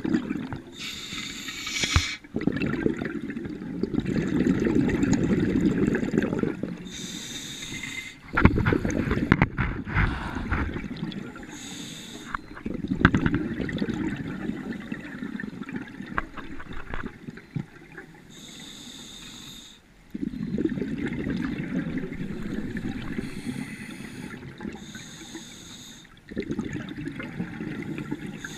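Scuba diver breathing through a regulator underwater: a short hissing inhale, then a longer bubbling rumble of exhaled air. The cycle repeats about every six seconds, five breaths in all.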